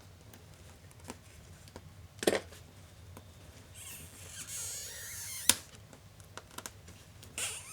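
Laptop parts being handled during disassembly: small clicks and two sharp knocks of plastic and metal parts, with a scratchy, squeaking stretch of about a second and a half near the middle as something is scraped or peeled.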